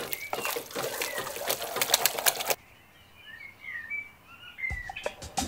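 Wet, sticky crackling and squishing of shredded chicken being stirred and mashed with its fat in a pot, cutting off abruptly about halfway through. Faint bird chirps follow, then a few soft low thumps and clicks near the end.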